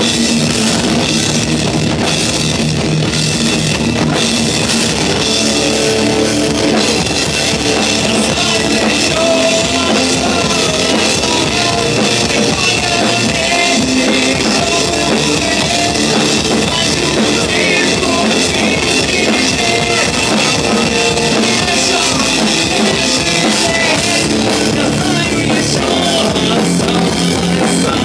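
Post-hardcore band playing live: electric guitar, bass guitar and drum kit at a steady loud level.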